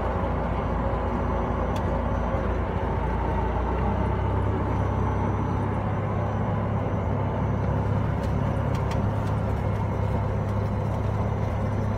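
A single-engine light aircraft's propeller engine running at low power while it taxis, a steady drone heard inside the cockpit. The low hum shifts slightly about four seconds in.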